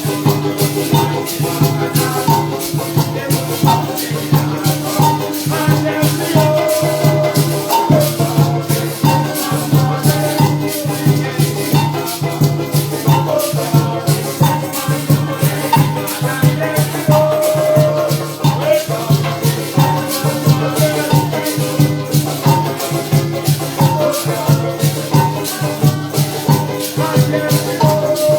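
Parang band music: maracas shaken in a fast, steady rhythm over a sustained low bass and melodic pitched instruments.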